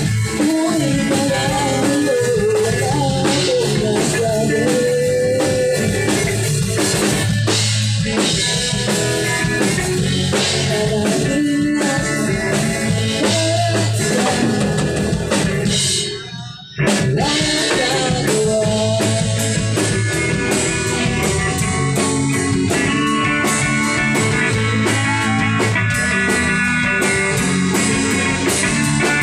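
Live amateur music: singing over acoustic guitar, then, after a brief break about halfway through, a band playing drum kit, electric bass and electric guitars.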